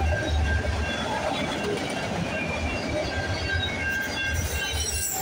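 Freight train of autorack cars rolling past close by: a steady rumble of steel wheels on rail, with brief high squeals from the wheels dotted through it.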